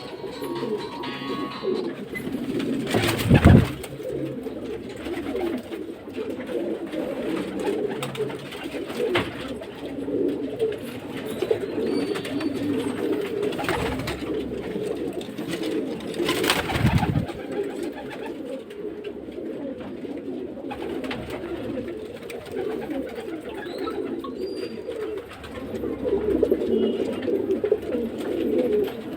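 Many domestic pigeons cooing together in a small enclosed space, a continuous overlapping murmur of coos. Two louder sudden noises break in, one about three seconds in (the loudest) and another around sixteen seconds in.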